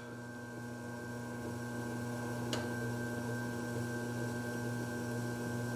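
Electric pottery wheel motor humming steadily as the wheelhead spins, with a single faint click about two and a half seconds in.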